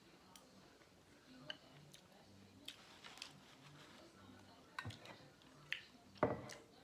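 Close-up mukbang eating sounds of a seafood boil: scattered wet lip smacks and mouth clicks while chewing, about one every second or so, the loudest near the end.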